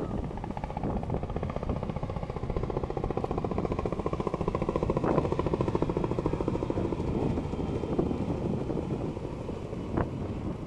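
Boeing CH-47 Chinook tandem-rotor helicopter flying past, its rotor blades beating in a rapid, even pulse that grows a little louder toward the middle and eases off near the end.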